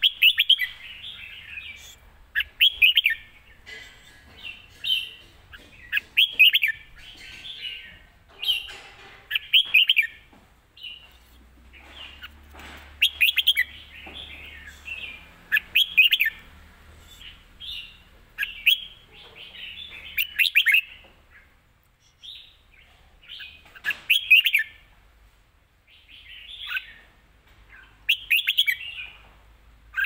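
Caged red-whiskered bulbul singing: short, bright chirping phrases delivered quickly, one every second or two, with brief pauses between them.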